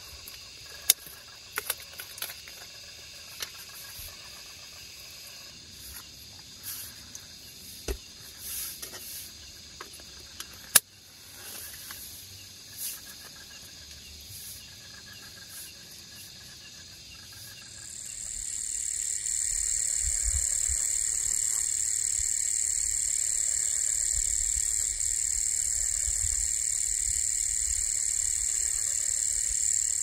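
Scattered clicks and knocks of hands handling a drink carton, its cap and wooden utensils, over a faint steady insect chorus. About 18 s in, a loud, steady, high-pitched chorus of crickets takes over, with a low rumble underneath.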